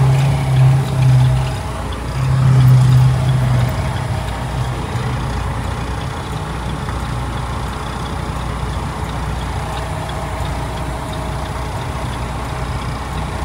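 Diesel engine of an International day-cab semi truck, heard from inside the cab while driving: two louder surges in the first four seconds, then an even drone.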